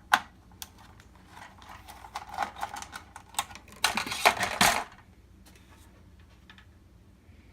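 Projector parts handled during a teardown: plastic and metal pieces clicking and knocking, with a louder rattling scrape about four seconds in.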